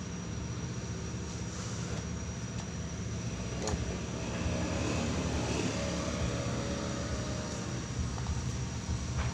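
Steady low rumble of background noise with a thin high steady tone above it. A single sharp click comes a little after three seconds in, and the rumble swells for a couple of seconds in the middle.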